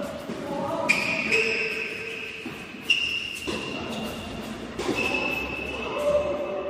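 Tennis ball struck by rackets in a doubles rally: three sharp hits about two seconds apart, echoing in a large hall.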